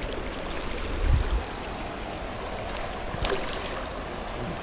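River current running fast over a rocky riffle: a steady rush of water, with a brief low thump about a second in.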